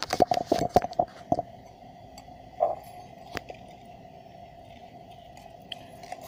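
Handling noise from close to the phone's microphone: a quick run of clicks and knocks in the first second and a half as a hand fumbles the phone and a copper-wound toroidal transformer, then two single knocks a little later, over a faint steady tone.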